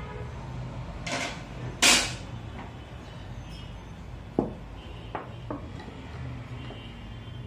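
Hard objects being handled: a brief loud clatter about two seconds in, then a sharp knock and a few lighter clicks, the sounds of tools and the TV's plastic back cover being handled as it is readied for opening.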